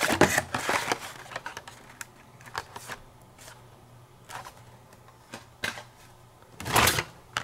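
Hot Wheels cars on card-and-plastic blister packs being handled: scattered light clicks and crinkles of cardboard and plastic, with a louder rustle near the end as cards are shifted in the shipping case.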